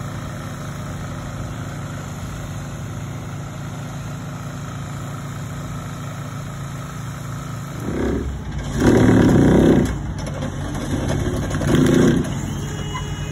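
Cat 308 excavator's diesel engine running steadily while it holds a piling, with three louder surges of noise in the second half, the middle one lasting about a second.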